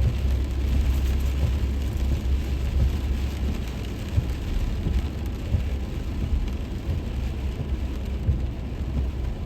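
Truck driving on a wet road in the rain, heard from inside the cab: a steady low rumble of engine and road with an even hiss of rain and wet tyres, and scattered small ticks.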